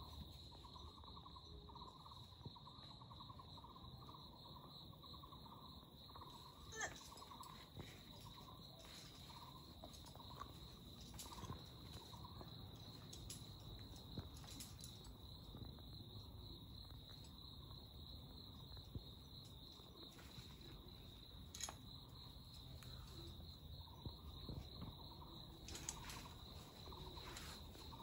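Faint insects calling: a steady high-pitched buzz under a pulsed chirping that repeats about twice a second, fading out after about seven seconds and returning near the end. A few faint, short clicks and knocks are scattered through.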